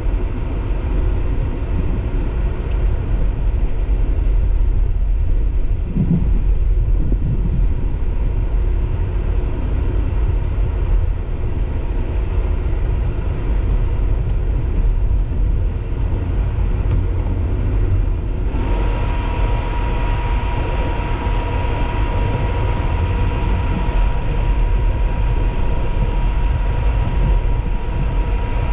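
Storm-force wind buffeting the microphone, a loud, steady rumbling roar. About two-thirds in the sound brightens and a steady high whistle joins it and holds.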